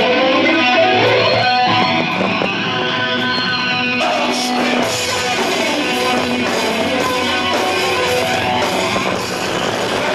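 Live rock band with an electric guitar to the fore, playing sustained melodic notes. About four seconds in the sound thickens as drums and cymbals join in.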